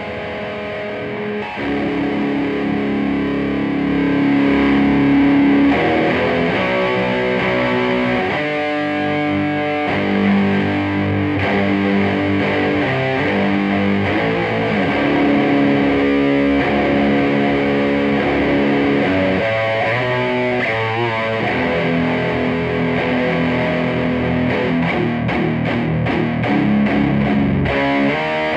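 Electric guitar played with distortion through a Peavey Bandit 112 combo amp: a run of riffs and chords with shifting notes.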